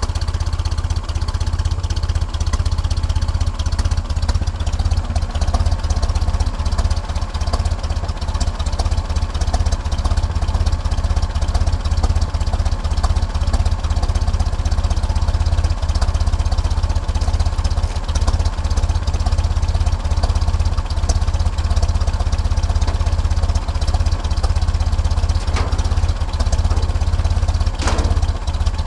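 A 1931 Ford Model A four-cylinder flathead engine idling steadily.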